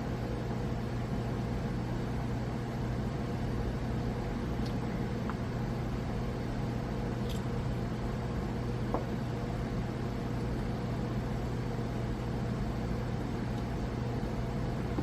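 Steady low hum of background machinery, such as a fan or air conditioning, with a few faint light clicks of small parts being handled.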